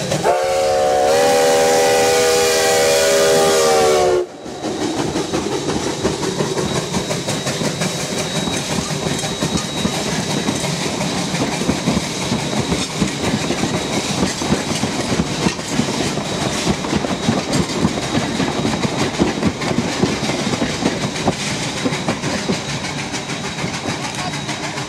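Steam whistle of narrow-gauge 4-6-0 locomotive No. 152 blowing one long chord of several notes for about four seconds, its pitch sagging slightly as it closes. It then gives way to the train rolling past close by, a steady clatter of wheels and running gear with a fast rhythmic beat.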